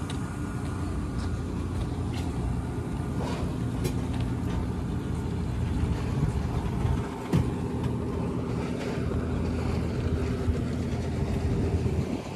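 An engine running steadily nearby, a low even hum that fades near the end, with a few light clicks.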